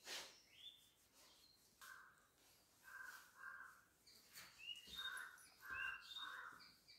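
Faint birds calling: a series of short harsh calls repeating from about two seconds in, with brief high chirps near the end.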